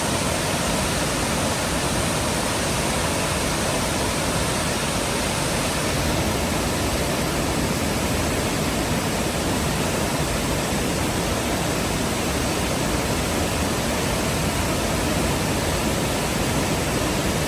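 Waterfall: steady, loud rushing of falling water.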